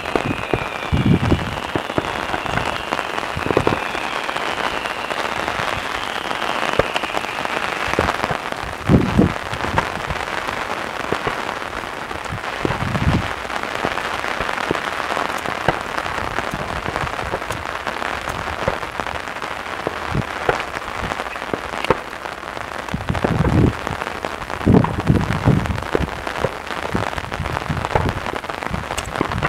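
Daytime aerial fireworks: a dense, continuous crackling from crackling stars, with shell bursts booming at intervals, most thickly a little before the end. Faint whistles sound through the first several seconds.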